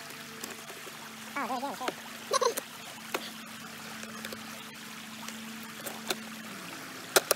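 Shallow creek water trickling steadily over rocks, with a few sharp plastic clicks as the hull of a small RC jet boat is handled and its canopy worked open.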